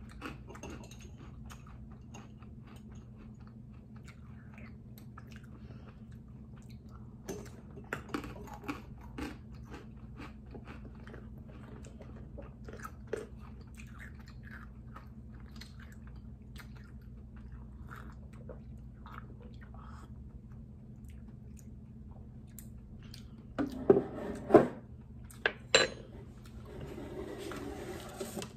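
Close-up crunchy chewing of Whoppers malted milk balls eaten from a bowl of milk with a spoon. Short scattered crunches over a steady low hum, with a burst of louder sharp clicks and knocks about twenty-four seconds in.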